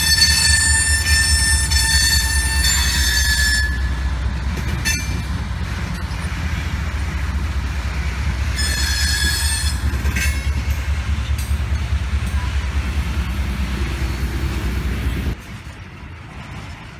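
Freight train passing close by: a steady low rumble from the trailing GE C40-9W diesel locomotive and the hopper cars rolling behind it. High metallic wheel squeal comes at the start and again about nine seconds in. The sound then cuts suddenly to a fainter, more distant train rumble near the end.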